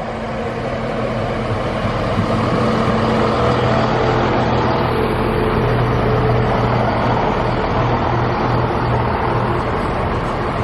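Heavy diesel engine running steadily, growing louder over the first few seconds and then holding at a steady level.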